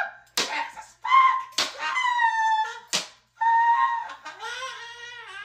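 Three sharp smacks of bat blows, each followed by a high-pitched scream; the last scream is long and wavering.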